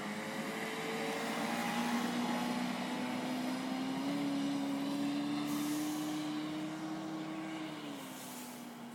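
Boat's 50-horsepower Mercury outboard motor running steadily at speed as the boat passes by. The engine note rises slightly, then drops in pitch and fades near the end as the boat moves away.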